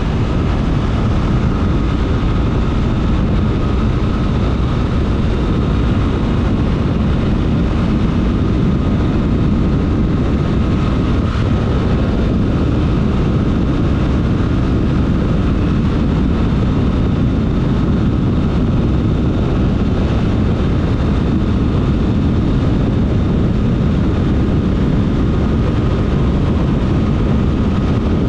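Honda XRE 300 Rally's single-cylinder engine running at a steady, even pace, with no revving or gear changes. The loud low rumble holds level throughout, with a faint steady whine on top.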